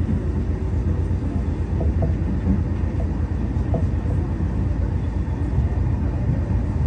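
Meitetsu electric commuter train running at speed, heard from inside the front of the train: a steady low rumble of wheels on rail and running gear.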